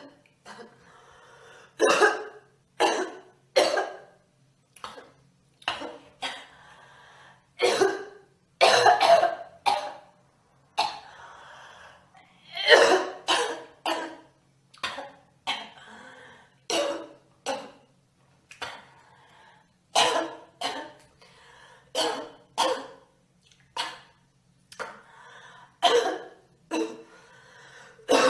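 A girl coughing over and over: short coughs, singly or in quick runs of two or three, roughly one every half second to a second.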